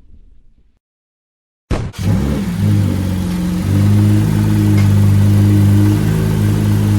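Toyota Camry 3.5-litre V6 with a freshly fitted aftermarket cold air intake, coming in suddenly about two seconds in and running at a steady idle that gets louder a couple of seconds later.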